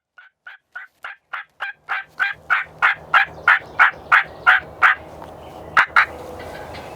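Turkey yelping: a long series of about sixteen evenly spaced yelps, roughly three a second, growing louder, then two loud yelps close together near the end.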